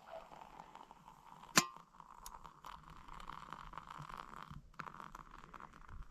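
A single sharp metallic clink of camp cookware about one and a half seconds in, over a faint steady hiss.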